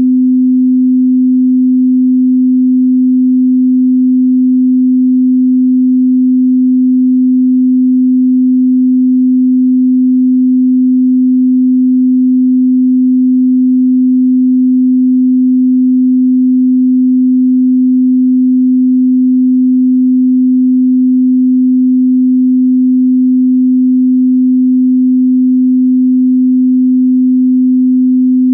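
A pure 255 Hz sine tone held steady and unbroken, a single low hum with no overtones, as used for calibrating sound systems or instruments.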